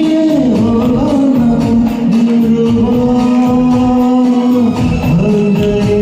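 A singer holding long, gliding notes of a Hindi film song over instrumental accompaniment with a steady beat.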